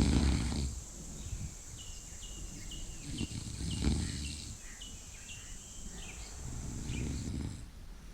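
A person snoring gently: three low, rough snores about three seconds apart, the first the loudest. Through the middle a string of short high chirps repeats about twice a second over a steady high hiss that stops shortly before the end.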